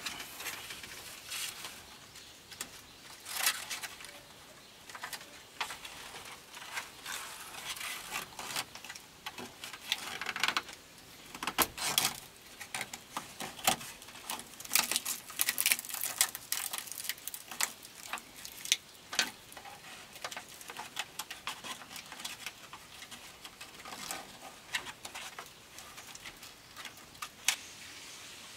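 Dry bamboo strips rustling, scraping and crackling as they are wrapped tight around a bamboo pole to lash it, a long run of irregular clicks and snaps.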